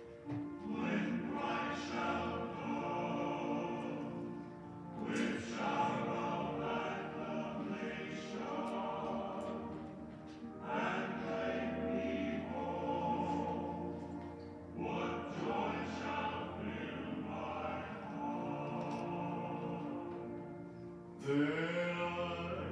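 Music: a song with singing over steady instrumental accompaniment, in phrases a few seconds long.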